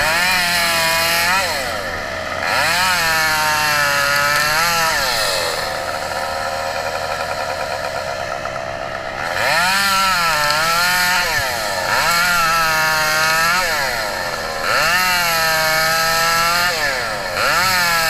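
Chainsaw revving up and cutting palo verde wood in repeated bursts of two to three seconds, the engine pitch rising into each cut and falling back between them. It drops to a lower, steadier run for a few seconds near the middle.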